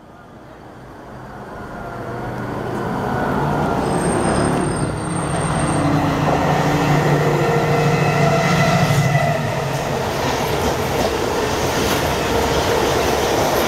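Class 70 diesel locomotive 70804 growing louder as it approaches and passes, its engine a steady low drone, then loaded freight wagons rumbling and clicking over the rail joints as they go by.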